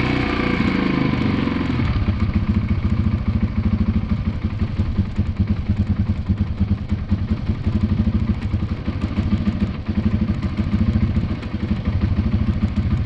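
2002 Yamaha 225 motorcycle engine running, its revs dropping about two seconds in and then settling into a steady, pulsing idle. It is running with the choke not fully pushed in, which the owner blames for the carburettor not running right.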